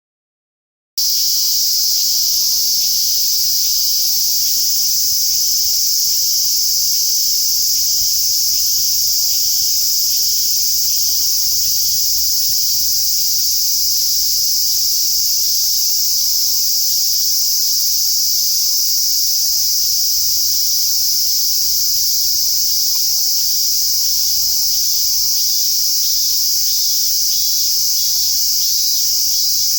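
A dense chorus of summer cicadas starts about a second in and keeps up a loud, steady, sizzling drone. Under it a faint two-note tone alternates over and over.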